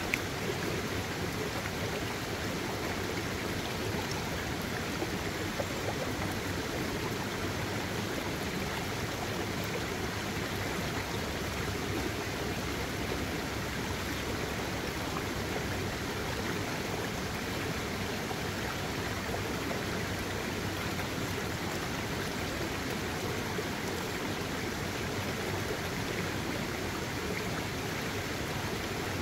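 Shallow rocky stream running over rock slabs and between boulders in small riffles: a steady, even rush of water.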